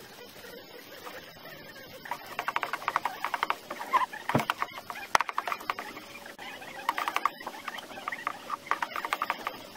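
Sliced onions frying in hot oil in a carbon-steel wok, crackling and sizzling in uneven bursts that pick up about two seconds in. There is a single sharp knock near the middle.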